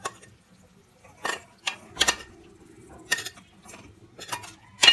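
A metal spoon knocking and scraping against stainless steel cookware while scooping fried vegetables and chicken from a frying pan into a pot of rice. It gives a run of sharp, irregular clinks that starts about a second in.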